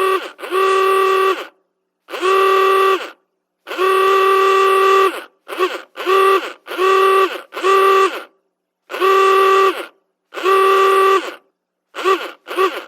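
Antique car horn honking about a dozen times in a row with a steady pitch: longer honks of about a second mixed with short, quick ones, including a fast pair near the end.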